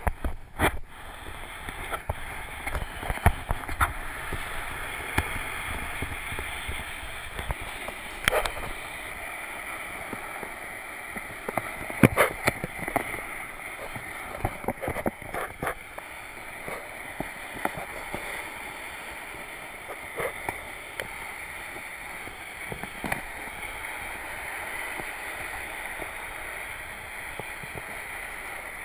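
Flat mop pad sliding over wooden floorboards, a steady scraping hiss, broken by scattered sharp knocks and clicks.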